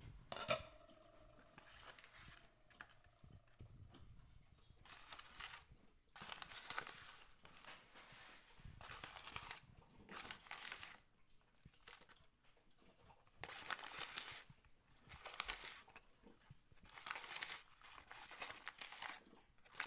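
Faint crinkling of a taco seasoning packet being handled as a small scoop digs seasoning out of it, in short rustling bursts repeated many times.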